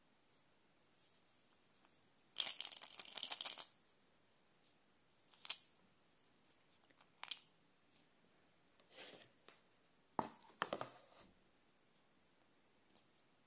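Crinkling and tearing of a thin foil wrapper being peeled off a hollow chocolate egg, a dense burst of about a second. Then come a couple of sharp single clicks and a few soft rustles and taps as fingers handle the bare chocolate shell along its seam.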